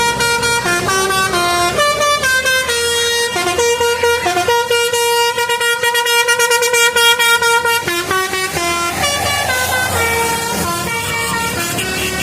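Bus 'telolet' musical air horn playing a melody of short, stepping notes, with a run of rapidly repeated notes in the middle.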